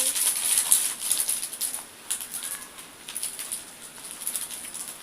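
Rustling, crinkling and small clicking noises of a gift box being handled and opened. They are busiest in the first two seconds, then fainter and sparser.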